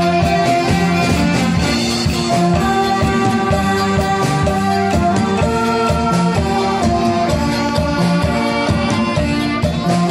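A saxophone ensemble playing a tune together in several parts over a steady beat.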